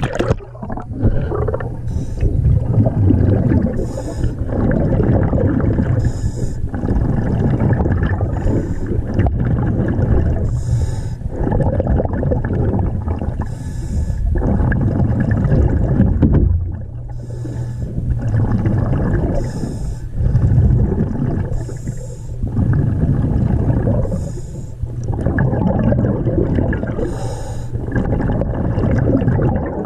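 Underwater recording of a diver breathing through a regulator: a hiss on each inhale and a gurgling rush of exhaled bubbles, in a steady rhythm of breaths every few seconds.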